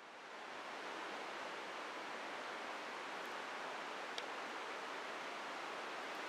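Steady rushing of a stream, fading in over the first second, with one faint tick about four seconds in.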